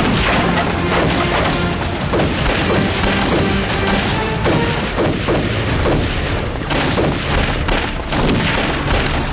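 Dramatic music score over a gunfight: repeated pistol and rifle shots with heavy explosion booms, dense throughout.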